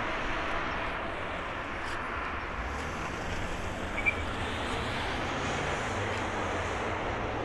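Airbus A350-900's Rolls-Royce Trent XWB turbofans running at low taxi power: a steady jet rush with a low hum beneath it. A short click sounds about four seconds in.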